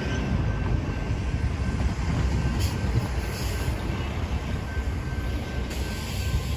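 Steady low rumble of passing vehicles, with a faint thin high tone held under it.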